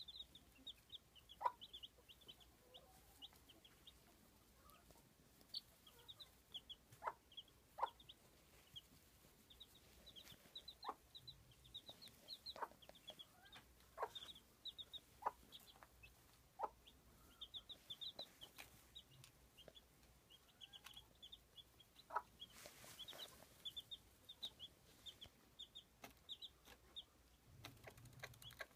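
Young chicks peeping faintly and almost without pause, in rapid runs of short high notes that each drop slightly in pitch. A short sharp sound cuts in every few seconds and is the loudest thing heard.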